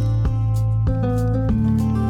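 Background music: plucked guitar with a bass line, notes changing about every half second.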